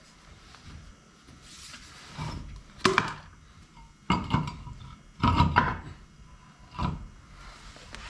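Several separate knocks and clanks of tools and parts being handled on the car, some with a short metallic ring, spaced about a second apart.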